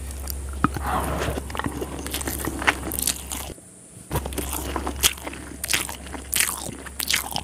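Close-miked chewing of a hand-fed mouthful of chicken biryani rice: a run of wet mouth clicks and smacks. The sound drops out briefly a little past halfway.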